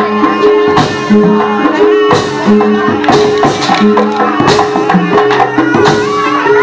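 Jaranan Buto gamelan music: drums and percussion strikes over a repeating pattern of held notes.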